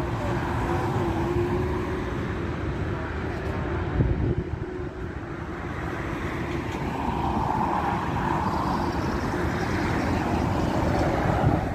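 A Boeing 787-8's jet engines running with a steady whine as the airliner moves along the runway. Wind buffets the microphone throughout, with gusts about four seconds in and near the end.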